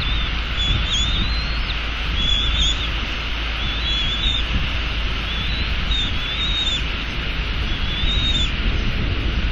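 Wind buffeting the outdoor nest-cam microphone as a steady low rumble, over a steady hiss of rain. Short, high, wavering bird chirps come every second or so.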